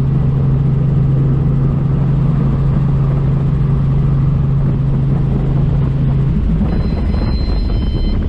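Helicopter noise heard from the cockpit: a steady low drone over a heavy rumble. The drone drops away about six seconds in, and several high steady tones come in near the end.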